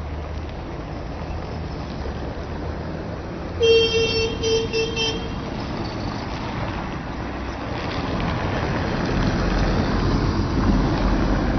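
Tram warning horn sounding about four seconds in, one longer toot then three short ones, over steady street traffic. From about eight seconds the low rumble of the approaching tram grows louder.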